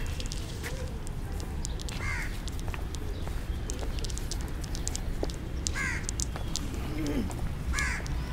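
Crows cawing, three separate caws about two, six and eight seconds in, over a steady low outdoor city hum, with scattered light clicks of footsteps.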